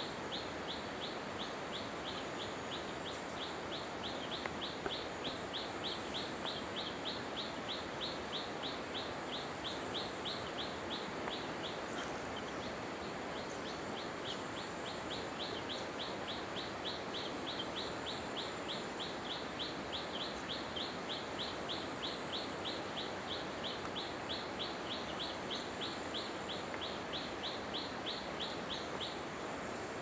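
A short, high chirp repeated evenly about three to four times a second, nearly without pause, over the steady rush of a waterfall. The chirping breaks off briefly about twelve seconds in and stops just before the end.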